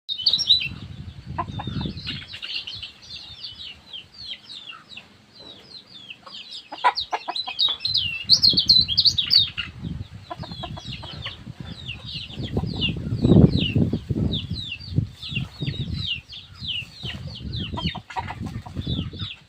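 Lemon-bellied white-eye singing a fast, unbroken run of short, high, quick notes. Low, muffled bursts sound underneath at times, the loudest about 13 seconds in.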